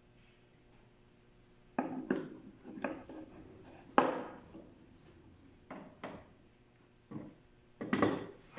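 Parts of a photocopier's drum unit being handled: a series of separate knocks and clatters, the sharpest about four seconds in and a cluster near the end.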